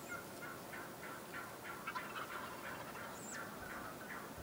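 Wild turkey gobblers gobbling, faint and distant: repeated runs of quick rattling notes. A single brief high chirp cuts in about three seconds in.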